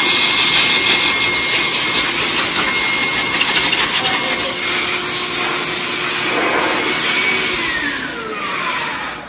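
Hose-type dog grooming force dryer blowing air steadily through its nozzle, with a high motor whine. About seven seconds in, the whine slides down in pitch and the air noise fades as the dryer winds down.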